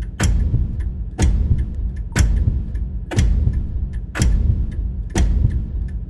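Dramatic teaser soundtrack: a sharp, heavy hit about once a second, each ringing off, over a steady low rumble.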